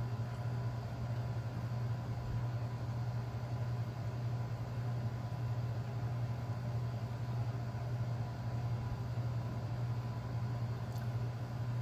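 A steady low hum with a faint hiss behind it, unchanging throughout, and one faint tick near the end.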